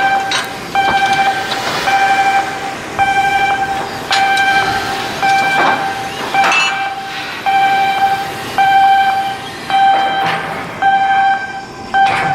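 Electronic warning alarm beeping, one steady mid-pitched tone about half a second long, repeated about once a second, typical of a crane or moving-machinery warning at a shipyard. Scattered metallic knocks from work sound between the beeps.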